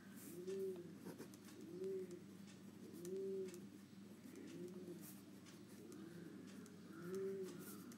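A bird cooing faintly, a low coo that rises and falls about five times, roughly every second and a half. Light scratchy strokes of handwriting are heard between the coos.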